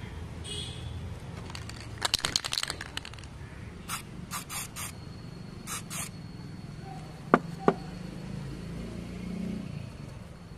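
Pliers scraping old paint off the cassette deck's front panel in a quick flurry of rasps about two seconds in, then several short bursts from an aerosol spray can aimed at a plastic control knob. Two sharp clicks follow near the end.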